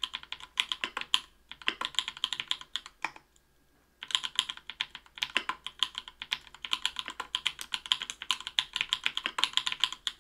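Typing on a mechanical keyboard with lubed Everglide Bamboo Leaf Green 62g tactile switches in an aluminium plate, under PBT keycaps. Quick runs of keystrokes, with a pause of about a second starting about three seconds in, then typing again.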